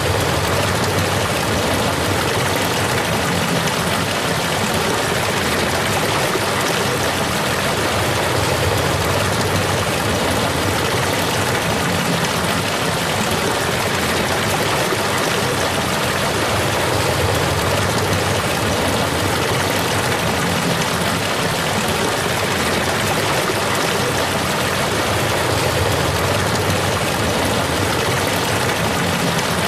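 A waterfall's water rushing in a steady, unbroken roar.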